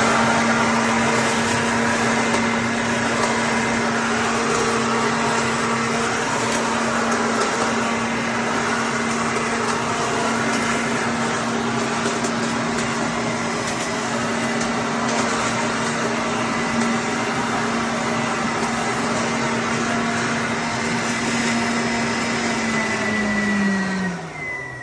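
Vacuum cleaner motor running with a steady hum and rushing air, then switched off near the end, its pitch falling as it spins down.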